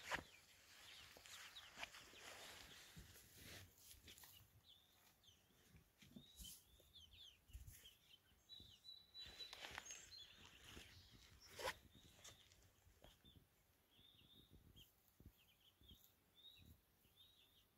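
Faint peeping of young chickens foraging in long grass: short, high chirps, more frequent through the second half. Occasional rustles, with one sharp tap about two-thirds of the way through.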